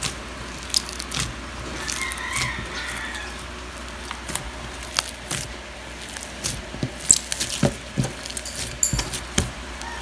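Blue slime mixed with instant snow being kneaded and squeezed by hand, making irregular wet squishes and small clicks and pops.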